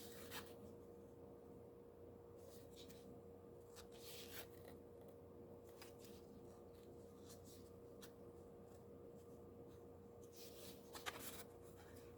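Near silence with a few soft, brief rustles of paper: guidebook pages being handled and turned, the clearest about four seconds in and near the end, over a faint steady hum.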